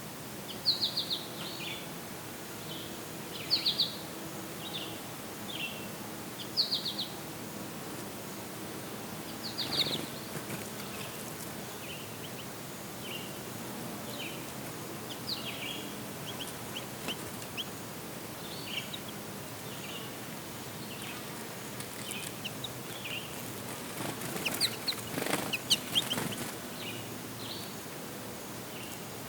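Small songbirds chirping in short clusters of quick high notes, repeated every few seconds, over a faint low hum in the first half. A burst of sharp rustling clicks comes near the end.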